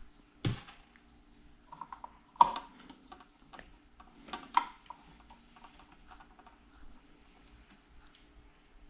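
Wire cutters snipping through the ends of electrical cable conductors: three sharp snaps about two seconds apart, with lighter clicks of the wires and tool being handled between them.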